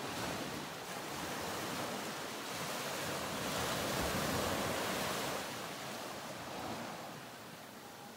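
Ocean surf: a wash of rushing water that swells to its loudest about halfway through, then fades away.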